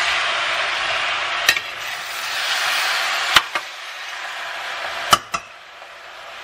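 Raw pork chunks sizzling in a hot stainless steel frying pan as they are stirred with a metal spoon. Four sharp clinks of the spoon against the pan stand out, and the sizzle grows quieter in the second half.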